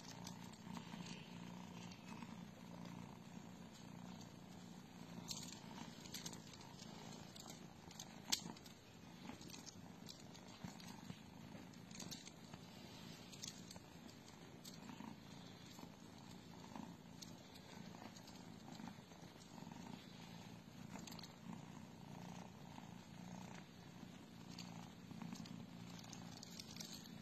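Cat purring steadily and faintly, swelling and easing with each breath, with scattered light clicks and taps and one sharper tick about eight seconds in.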